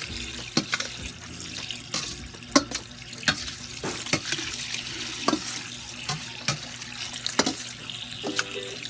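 Kitchen tap water running into a sink as drained penne pasta is rinsed, with irregular sharp knocks every second or so.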